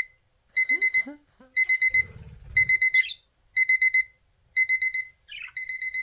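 Electronic alarm beeping: rapid high beeps in groups of four or five, repeating about once a second. A few faint, short chirps from the budgies fall between the groups.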